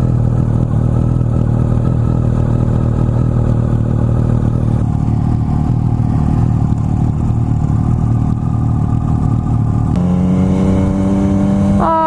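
Yamaha MT-09's 847cc three-cylinder engine running through an Akrapovic carbon full exhaust, holding steady revs. About ten seconds in the revs step up, then near the end they fall away sharply.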